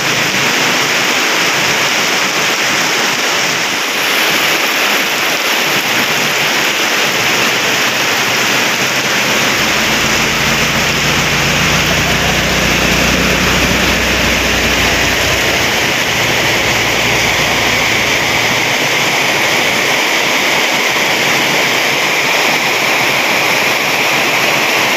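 Heavy rain pouring steadily on the road and roofs. A jeepney's engine rumbles past, from about ten seconds in to about sixteen.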